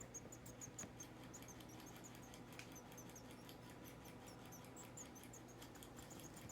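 Pet rat whistling: a quick run of short, high-pitched squeaks, several a second, with faint ticks among them.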